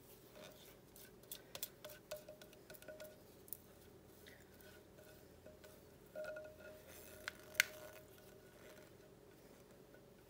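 Spatula scraping filling out of a glass mixing bowl: scattered light clicks and clinks, each with a short ring of the glass, and one sharper click about seven and a half seconds in.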